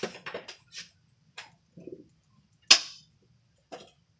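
A BB pistol fires once, a single sharp crack a little over halfway through, with a few softer clicks and knocks before it.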